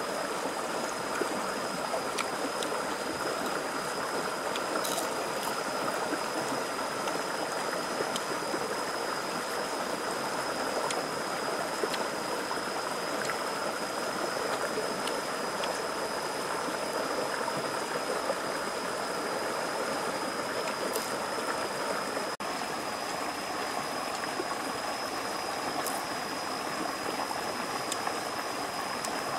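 Shallow rocky stream rushing and burbling steadily over stones, with a thin, steady high tone running under it.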